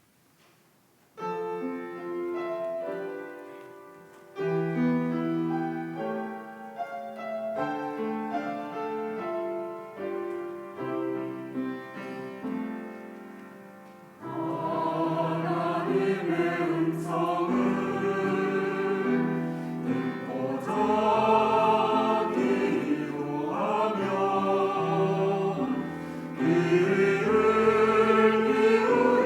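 Piano introduction of separate sustained chords, then about halfway through a church choir comes in singing a hymn-style anthem with the piano accompanying, louder from there on.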